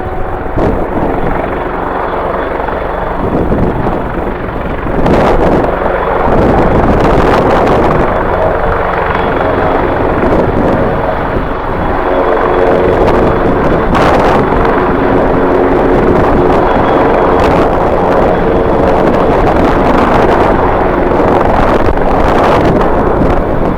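Airliner engines running loud and steady, with several sustained tones that come up about halfway through, mixed with strong wind buffeting the microphone in gusts.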